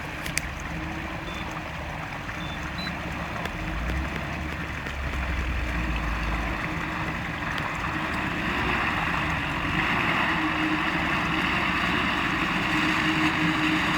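Off-road 4x4 engine working under load, getting steadily louder, with a broad rushing noise over a low rumble.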